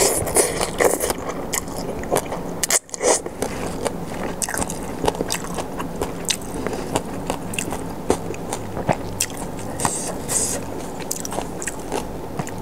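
Close-miked chewing and biting of papaya salad and rice noodles, with many short crisp crunches.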